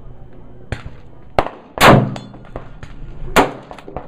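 Gunshots from a .223 bolt-action rifle. A loud shot comes about two seconds in and a second strong one about a second and a half later, each with a short echo, among fainter pops and clicks.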